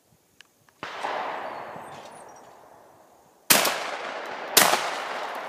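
Shotgun fire at clay targets. A bang about a second in dies away slowly, then two loud shots follow about a second apart near the end, a double.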